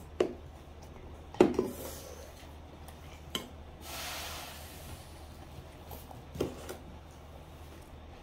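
Wooden chopsticks and a wooden spoon clacking against stainless steel lunch containers: a few separate knocks, the loudest about a second and a half in, another pair about six and a half seconds in. A soft hiss lasting about a second comes about four seconds in.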